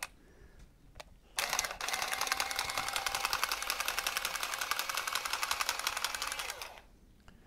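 Milwaukee cordless copper tubing cutter (Pipeslice) running for about five seconds as it cuts round a 28 mm copper pipe frozen solid, a steady motor sound with fast, even ticking. It starts about a second and a half in and stops near the end.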